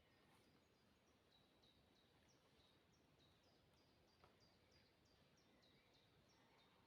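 Faint bird song: a long, even series of short, high notes, each sliding down in pitch, about three a second, over a soft background hiss.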